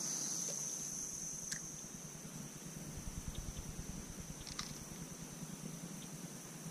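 Quiet open-air ambience on a lake: a steady high-pitched whine, a low fluttering wind rumble on the microphone from about halfway, and two faint clicks.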